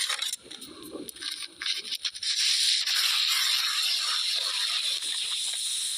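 An object sliding over snow: scattered scrapes at first, then a steady hissing slide from about two seconds in.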